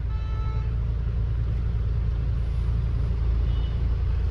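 Steady low rumble of vehicle engines idling in stopped traffic. A brief pitched tone sounds near the start.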